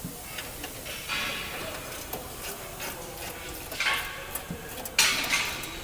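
Hand tools working on the condenser bracket bolts of a truck: scattered metallic clicks and short scrapes, with a sharp knock about five seconds in, the loudest sound.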